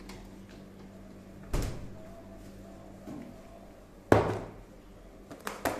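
A dull knock about a second and a half in, then a sharp clack about four seconds in, the loudest, and a few quick clicks near the end. They come from a wooden door being pushed open and the lid of a plastic snack container being handled.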